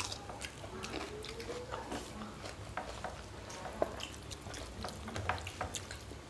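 Hands mixing rice with dal on steel plates, along with chewing: scattered small wet clicks and smacks.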